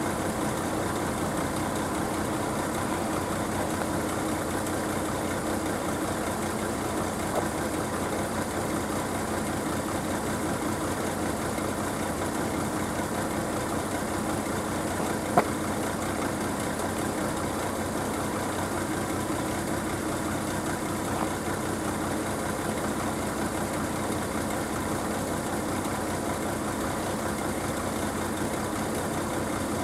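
An engine idling steadily, with a single sharp click about halfway through.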